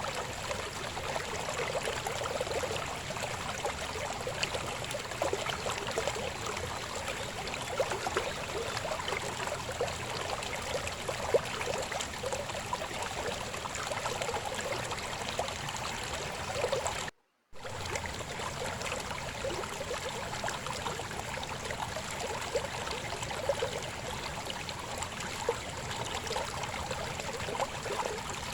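River water flowing and babbling steadily, with a sudden gap of about a third of a second a little past halfway through.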